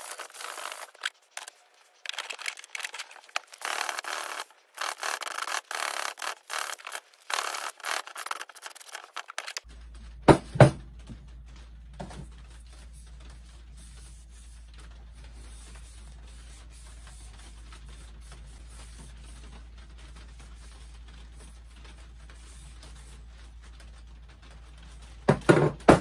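Hand rubbing strokes on a wooden hatchet handle, quick and uneven, for about ten seconds. Then a quieter stretch with two sharp knocks just after the rubbing stops, and two more near the end as the steel-headed hatchet is set down on the wooden workbench.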